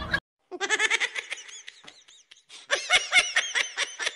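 A person laughing in quick, high-pitched giggles. It starts about half a second in, fades a little in the middle, and comes back louder near the three-second mark.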